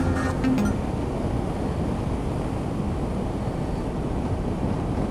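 A Honda CB500X motorcycle riding at road speed, heard as a steady rush of wind over the camera's microphone. The tail of electronic intro music dies away in the first half second.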